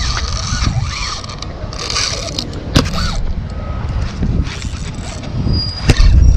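Spinning reel being cranked to bring in a hooked fish, its whirring and the rattle of rod and reel handled right against the microphone over a heavy rumble, with a few sharp knocks, the loudest near the end.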